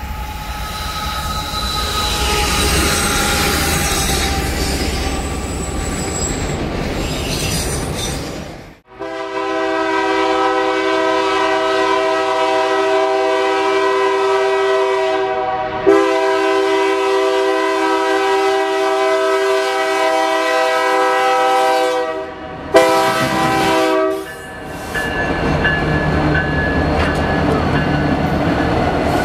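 Rolling noise of a passing freight train. After a sudden cut about nine seconds in, a locomotive air horn sounds one long steady chord of several notes for about thirteen seconds, then a short blast. The rolling train noise then returns.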